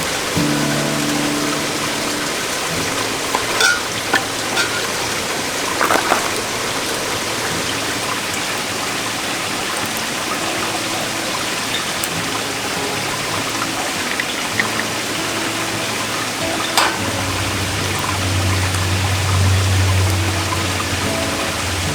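Stream water rushing steadily over rocks, with a few short sharp knocks about 4, 6 and 17 seconds in.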